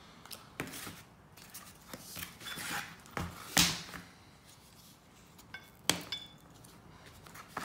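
Scattered small clicks and knocks of hand-tool work on plastic and metal parts: a small screwdriver and the wiring being worked into an angle grinder's switch housing. There is a sharper knock about three and a half seconds in and another near six seconds.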